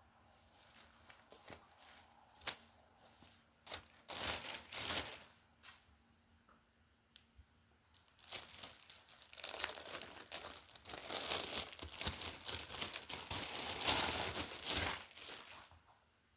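Clothing packaging being torn open and crinkled by hand. First come scattered rustles and clicks, then several seconds of continuous crinkling from about halfway in.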